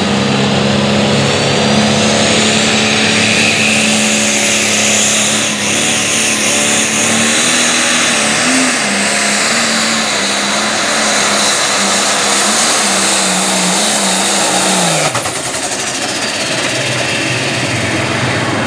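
Light Pro Stock pulling tractor's turbocharged diesel engine running flat out under the load of a weight-transfer sled, with a high whine climbing over the first few seconds. About fifteen seconds in the engine drops off suddenly as the pull ends, and the tractor stands in its own white smoke.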